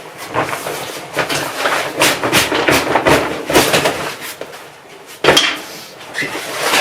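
Gear being handled and moved about: irregular rustling and clattering, with one sharp loud knock about five seconds in.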